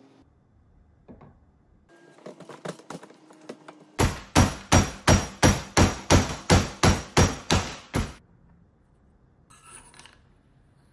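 Barrel being hammered into a rifle's upper receiver: about a dozen sharp, evenly spaced knocks, roughly three a second, after some quieter clicking and rubbing of parts being handled.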